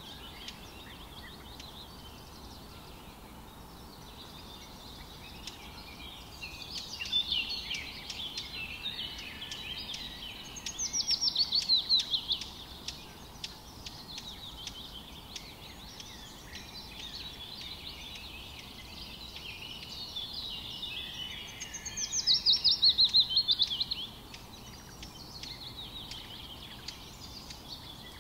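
Birds singing and chirping, with a fast trill of notes falling in pitch sung twice, about 11 seconds in and again about 22 seconds in.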